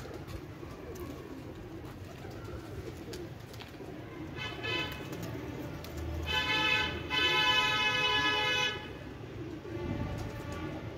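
Domestic pigeons cooing, with a vehicle horn sounding over them: a short, fainter note about four and a half seconds in, then a long, loud blast from about six to nearly nine seconds with a brief break near seven.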